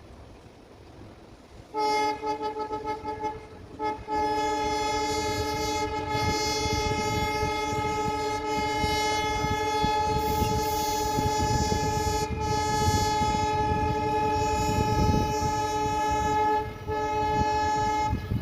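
WDP-4D diesel-electric locomotive's horn: a few pulsing blasts about two seconds in, then one long continuous honk with a brief break near the end. A low rumble of the moving train runs beneath the horn.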